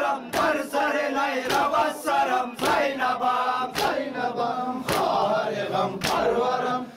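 Men chanting a nauha lament, a Shia mourning chant. Hands strike chests in time with the chant, about once a second.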